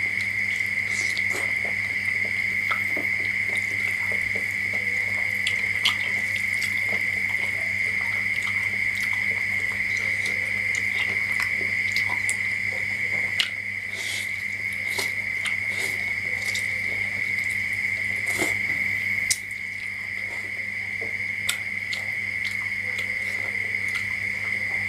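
Close-miked eating: scattered wet clicks and smacks of chewing mushrooms and rice noodles, over a constant high-pitched whine and a low hum.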